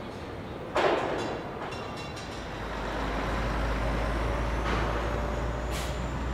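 Truck assembly-line machinery: a sharp metal clank about a second in, then a low steady rumble that starts about two and a half seconds in, with a short hiss near the end.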